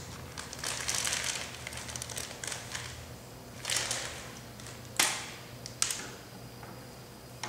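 Clear plastic crinkling and rustling as it is handled, followed by a few sharp clicks about five and six seconds in as parts of the line striper's handlebar are handled.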